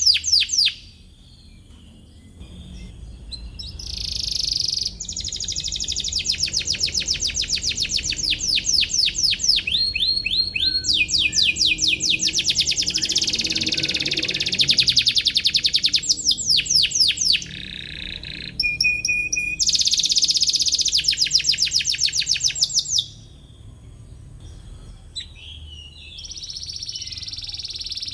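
Domestic canary singing: long phrases of rapid, repeated chirping notes and trills, broken by a few short pauses, including one early on and one near the end.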